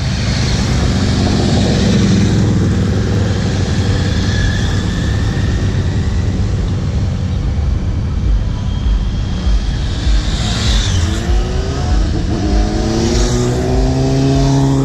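Motorcycle engines running loudly with a constant low rumble. About two-thirds of the way in, one engine accelerates, its pitch climbing and then holding high.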